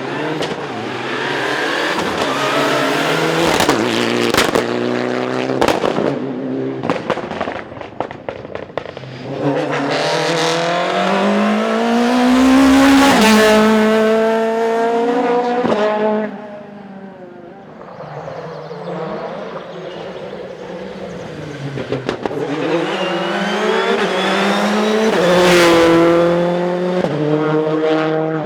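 Rally cars at full throttle: engines revving hard, pitch climbing through the gears and falling on lifts and braking, with a run of sharp pops and cracks in the first several seconds. The engine note peaks about halfway through, drops away, then climbs again before cutting off suddenly at the end.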